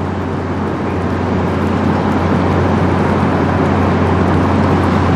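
Lake freighter Maumee passing close: a steady low engine drone under a rushing noise of hull wash, slowly growing louder as the stern nears.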